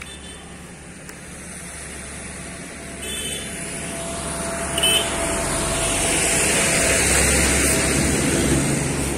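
A road vehicle passing close by, its engine and tyre noise growing steadily louder to a peak about two-thirds of the way through, then starting to fade.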